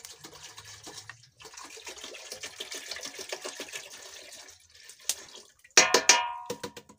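Milk pouring from a plastic bottle into a metal cooking pot, a steady splashing stream with a short break about a second in, tailing off about four and a half seconds in. Near the end comes a brief, loud, pitched sound, the loudest moment.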